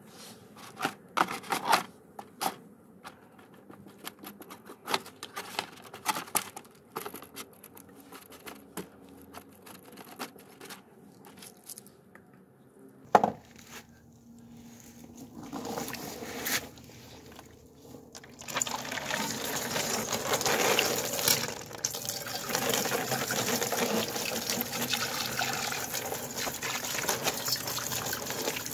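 Brush strokes scraping and clicking on a brass dish sitting in cleaning solution. About halfway through there is a sharp click. Then, from about two-thirds of the way in, water runs and splashes steadily over the brass dish as it is rinsed and pours off into a plastic tub.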